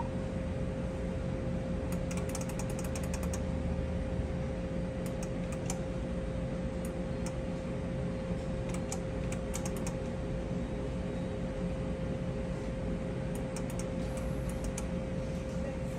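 Steady electrical machine hum with a constant tone, broken by several short runs of rapid light clicks.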